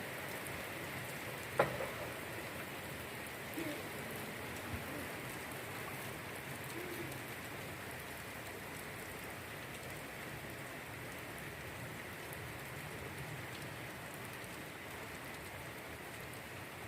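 Steady rain falling, an even hiss, with a single sharp knock about one and a half seconds in.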